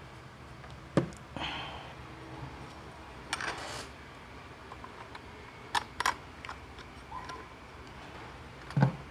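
Metal parts of an electric fan motor, the stator and its housing, being handled and fitted together: a few sharp clicks and knocks with short bits of scraping and wire rustling. The loudest is a dull knock near the end.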